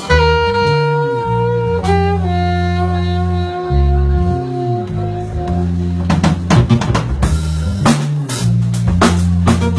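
Live jazz-pop band: tenor and alto saxophones hold two long notes over electric bass and keyboard, and the drum kit comes in with kick, snare and cymbal hits about six seconds in.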